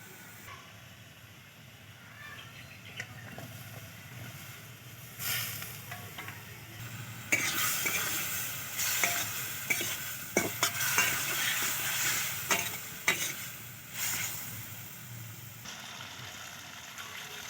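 Food frying and sizzling in a pan while a utensil stirs it, with a busier stretch of sharp clicks and knocks against the pan from about seven seconds in until about fourteen.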